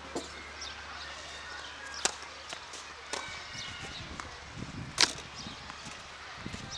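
Tennis balls struck and bouncing on a clay court: four sharp knocks a second or two apart, the loudest about five seconds in.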